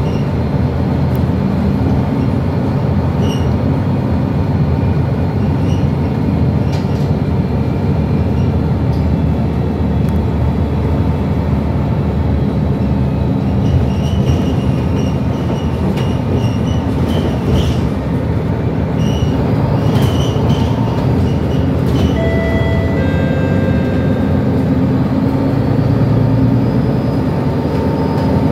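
Cabin of a moving MAN A22 Euro 5 single-deck city bus: steady drone of its rear-mounted six-cylinder diesel engine together with road noise, and scattered rattles and clicks from the interior fittings. A few short high tones sound a little over twenty seconds in.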